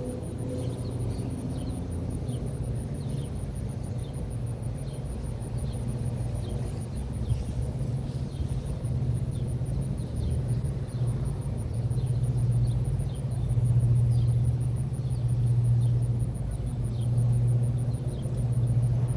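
3.5-ton American Standard Silver Series central air conditioner outdoor unit giving a low rumbling hum that swells and eases, while a fainter higher hum dies away in the first couple of seconds. Crickets chirp steadily in the background.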